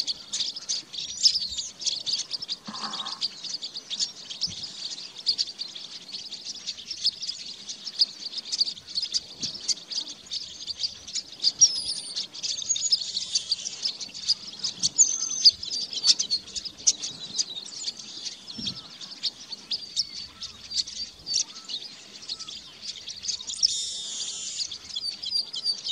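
Male chestnut-capped blackbird singing, giving a hissing, buzzy phrase about 13 seconds in and again near the end. Under it runs a steady mass of rapid high chirps.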